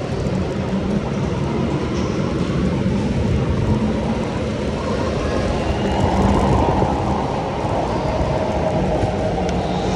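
Electric go-kart being driven hard round an indoor track, heard from the driver's seat: a steady, loud mix of motor, tyre and chassis noise that swells a little about six seconds in.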